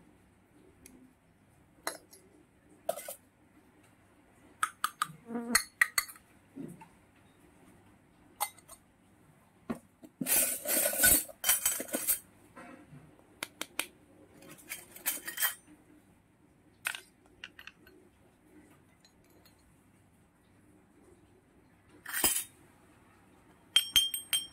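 Miniature stainless-steel toy pots, pans, lids and a little bucket clinking and clattering as they are handled and set down, in scattered sharp clinks with a longer clatter about ten seconds in and a short metallic ring near the end.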